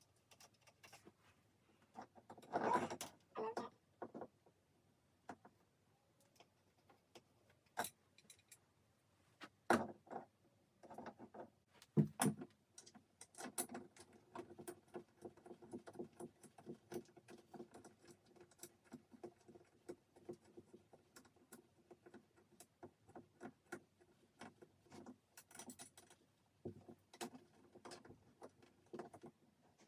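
Light clicks, taps and metallic rattling from a small hanging rack with metal hooks being handled and held against a wall, with a few louder knocks early on and a dense run of small rattling ticks in the second half.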